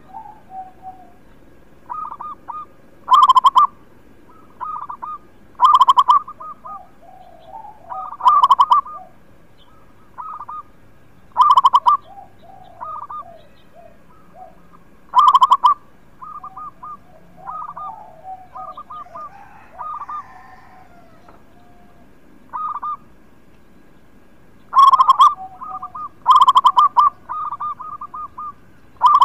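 Zebra dove (perkutut) singing its cooing song: short runs of rapid, stuttering coo notes repeated throughout, with a much louder phrase every two to three seconds.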